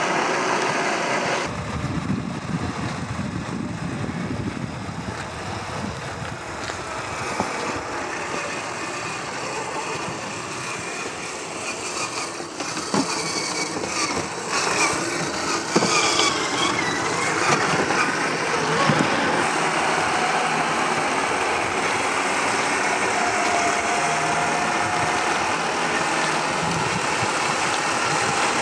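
Traxxas TRX4 scale RC crawler driving off-road: its brushed electric motor and gear drivetrain whine, rising and falling with the throttle, over a steady rough noise from the running gear and tyres on loose ground, with a few sharp clicks.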